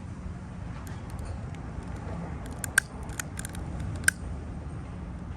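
A scattered run of sharp little clicks a little past halfway through, two of them louder than the rest, over a low steady rumble.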